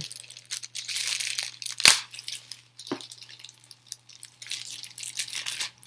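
Product packaging being handled and opened, with crinkling and rustling and a sharp snap about two seconds in.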